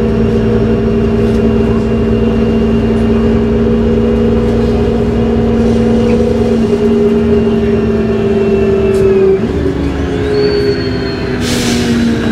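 Cummins Westport C Gas Plus CNG engine and Voith D863.3 transmission of a 1998 New Flyer C40LF bus, heard from inside the cabin, running under way with a steady whine. About nine seconds in the pitch drops and then climbs again as it changes gear, and a brief hiss comes near the end.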